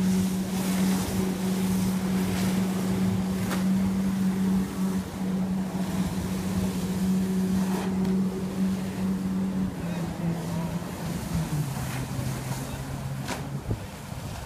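A marine engine runs at a steady high pitch over the rush of water and wind on the microphone. About ten seconds in, its pitch drops in steps, and it cuts out shortly before the end.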